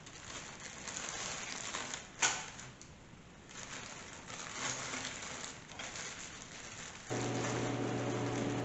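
Clear plastic bag crinkling and rustling as parts are handled, with a sharp click about two seconds in. About seven seconds in, a steady low hum starts.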